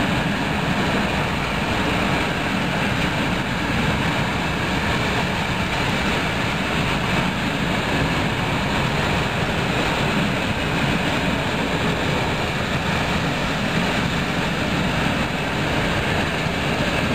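Passenger train coaches rolling past close by, with a steady, even rumble and rush of steel wheels on the rails.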